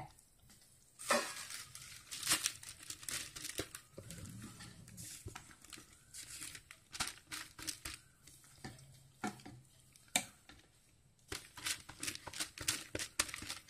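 Butter paper crinkling and rustling in irregular crackles as sticky caramelized vermicelli is spooned onto it with a wooden spoon, with light scrapes and taps of the spoon.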